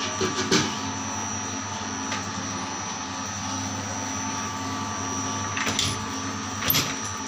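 Motor-driven soap noodle extruder (plodder) running steadily, a hum with a high whine, as soap is pushed out through its die plate. A few short knocks and clatters come about half a second in and again near the end.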